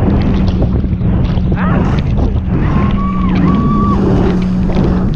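Boat engine running steadily under loud rushing water spray and wind buffeting the microphone as the inflatable skims fast over the waves. A few short rising tones sound over it.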